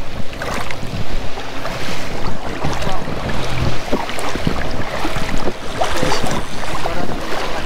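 Water sloshing and splashing irregularly around a person's legs as he wades through shallow lake water, with wind on the microphone.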